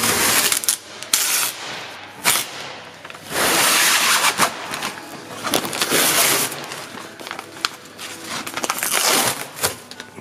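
A thin sheet being peeled off cured epoxy and fibreglass laminate, ripping and crinkling in several pulls, the longest a few seconds in.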